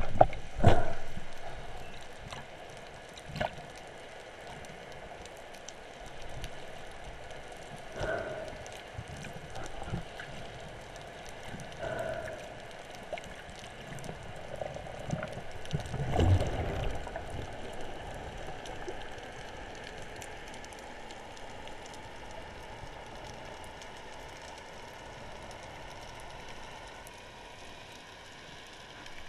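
Underwater sound picked up by a camera mounted on a speargun: a steady hiss with scattered knocks and bubbling gurgles. The loudest are at the very start and about 16 seconds in.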